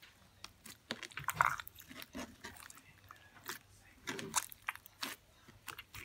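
Clear slime being squeezed and kneaded by hand, giving a run of irregular sticky clicks, pops and squelches, the loudest about one and a half seconds in.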